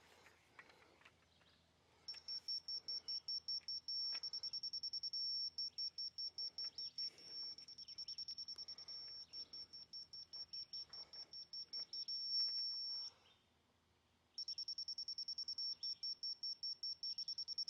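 Laser level receiver giving a rapid, high-pitched beeping while grade is checked against a rotating laser. The beeping stops briefly about thirteen seconds in, then starts again.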